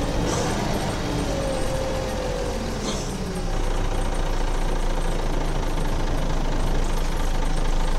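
Scania DSC9 12 diesel engine of an articulated Scania OmniCity city bus running. A whine falls slowly in pitch over the first three seconds or so, then the engine runs steadily and slightly louder.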